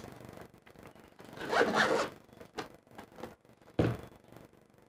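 Zipper on a hard-shell action-camera carrying case being pulled: one drawn-out zip about a second and a half in, with smaller scratching and rubbing of the case. Near the end there is a soft thump as the case is set down on the desk.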